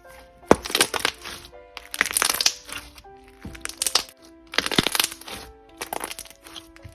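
Slime being squeezed and pressed by hand, giving bursts of crackling and popping about once a second, over soft background music.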